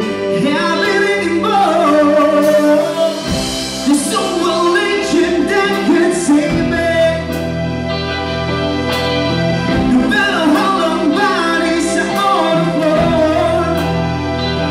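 Live band playing a slow pop ballad on drums and electric guitar, with a singer carrying the melody through the amplified sound system.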